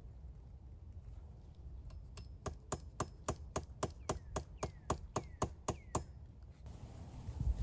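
Back of a hatchet hammering a nail into a wooden pole: a run of about fourteen sharp, quick strikes, roughly four a second, some ringing briefly. The hammering starts after about two seconds and stops well before the end.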